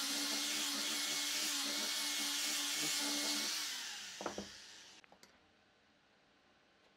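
Angle grinder fitted with a sanding disc sanding a curved wooden workpiece, running steadily with a high hiss. It is switched off and winds down about three and a half seconds in, and a single knock follows as the work is handled.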